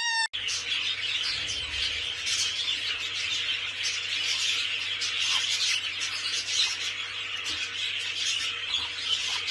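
A flock of many small birds chirping together in a dense, unbroken chatter, with a faint steady hum underneath.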